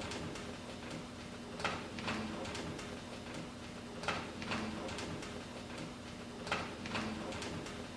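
A stylus riding the run-out groove of a spinning vinyl record after the music has ended. It plays steady surface hiss and a low hum, with a pair of clicks coming round about every two and a half seconds.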